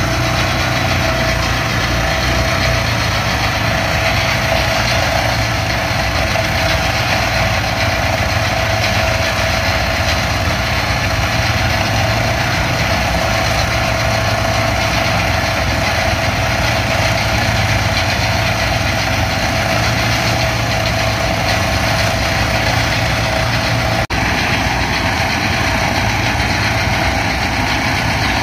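John Deere T670i combine running steadily under harvest load, a dense mechanical din with a constant low hum and a steady whine. It breaks off for an instant near the end.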